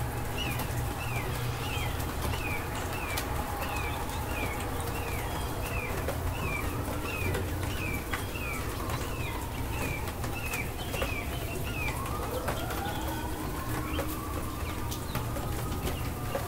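A bird repeats a short, falling chirp about twice a second for around ten seconds. About twelve seconds in, slow rising-and-falling whistled glides begin. A steady low rumble runs underneath.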